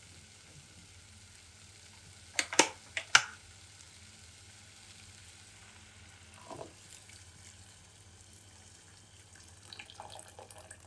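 Water poured in a stream into a pot of fried lentils and vegetables, a faint steady splashing. Three sharp clinks, the loudest sounds, come about two and a half to three seconds in.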